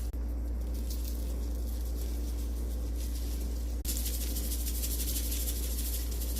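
Sprinkles being shaken over popcorn: a soft, steady rattling hiss over a low hum. The hiss turns brighter and louder about four seconds in.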